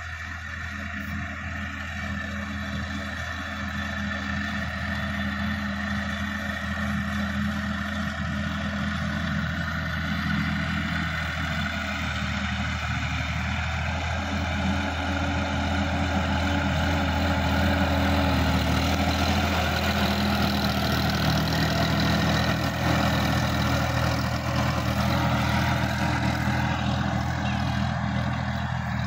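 Sonalika DI-50 RX tractor's diesel engine running steadily under load while tilling a field, growing louder as the tractor comes closer.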